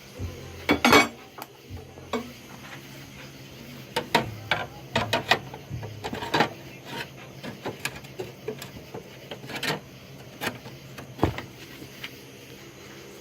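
Irregular clinks and clatters of metal tools and small hard parts being picked up, set down and handled.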